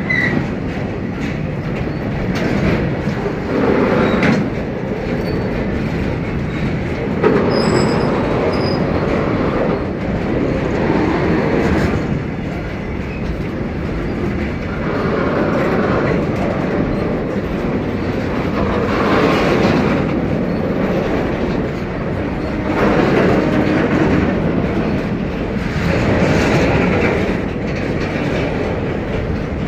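Indian Railways freight train of open wagons rolling past close by, with a steady rumble and wheel clatter that swells every three to four seconds. Faint, brief high wheel squeals come near the start and again about eight seconds in.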